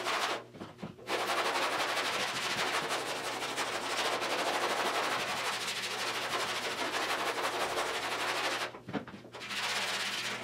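Long hand sanding block with sticky-back sandpaper scrubbed rapidly back and forth over the primed body panel of a car's hatch: continuous scratching strokes, stopping briefly about half a second in and again near the end. This is block sanding to show up the high and low spots in the panel.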